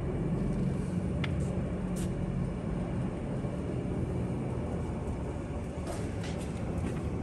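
LeBlond sliding-bed engine lathe running under power: a steady low hum from the spindle drive and gearing, with a couple of light clicks about one and two seconds in.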